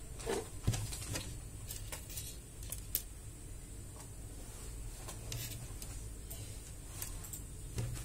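Scattered light clicks and taps as jumper wires are handled and plugged into an Arduino board and breadboard, over a low steady hum.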